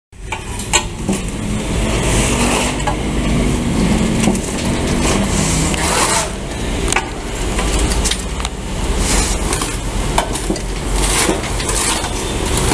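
Vibrating concrete-block press running, its motor giving a steady low hum, while a shovel and scoop scrape and clink through damp concrete mix as it is loaded into the mould.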